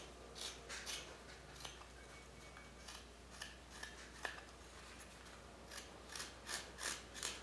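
Carving knife paring thin shavings from a walnut handle: a series of short, crisp slicing strokes, faint, coming faster and closer together near the end.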